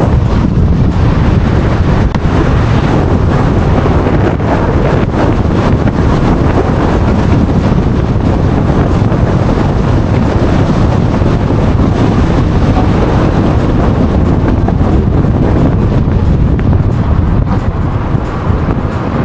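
Loud, steady wind noise buffeting the microphone, over the rumble of a moving car.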